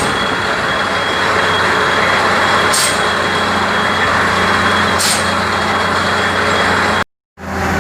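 Borewell drilling rig running, with a steady engine drone under a loud rushing hiss. Short sharp high hisses come every two to three seconds. The sound cuts out for a moment near the end and returns.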